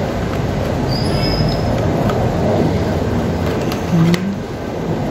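Steady mechanical background noise, with a brief high whistle-like tone about a second in and a few sharp clicks around four seconds.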